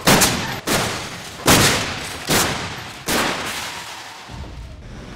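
Pickup trucks slamming into a rigid barrier in frontal crash tests: a series of about five sharp, loud crash bangs roughly three-quarters of a second apart, each dying away.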